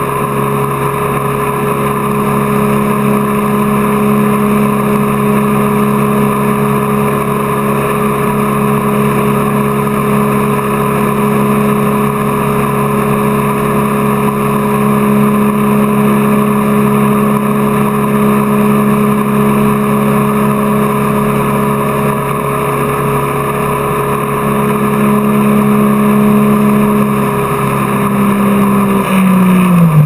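Tow boat's engine running steadily at speed over the rush of water and spray along the hull. Near the end the engine note drops as the throttle comes off.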